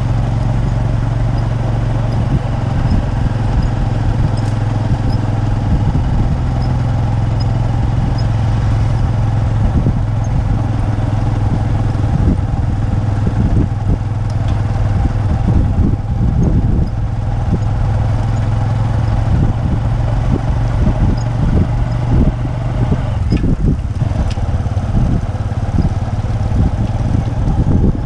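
Motor vehicle engine running steadily at close range, a constant low hum with irregular low rumbling over it.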